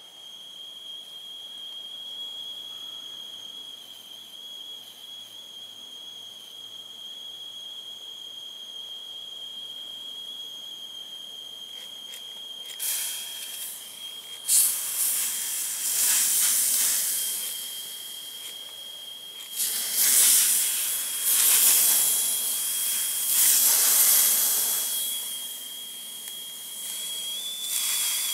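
Handheld propane insect fogger puffing out hot fog in a series of loud hissing spurts, six or so, each a second or two long, as the pump is worked, starting about halfway in. A steady high whistle runs underneath.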